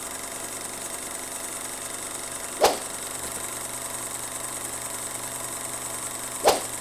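A steady machine-like hum with two sharp snaps, one near the middle and one near the end, about four seconds apart.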